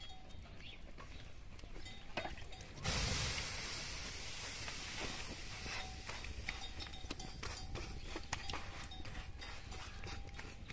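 Soft bread dough dropped onto a hot iron griddle over a wood fire, sizzling suddenly about three seconds in and hissing on as it is pressed flat by hand, the sizzle slowly easing.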